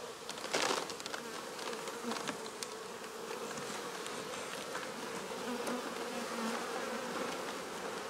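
Honey bee swarm buzzing, a steady hum with many bees flying near the cluster, swelling briefly about half a second in. The swarm is calm, docile with no hive to defend.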